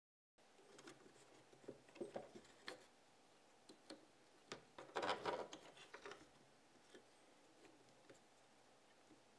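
Faint clicks and taps of small plastic and metal parts being handled, with a short scraping rustle about five seconds in, as pliers and fingers press a timing belt into a 3D-printed plastic slider.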